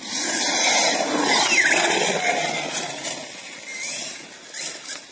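Radio-controlled off-road buggy speeding over loose sand and gravel, its motor whine bending up and down over the hiss of tyres spraying grit. It is loudest in the first two seconds as it passes close, then fades as it drives away.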